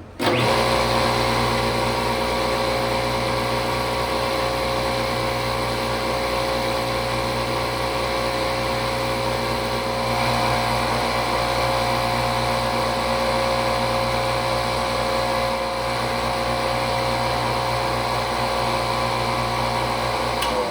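Electric drill motor starting up and running at a steady speed, used to drill 1/8-inch holes in steel. It switches off near the end and winds down over a second or so.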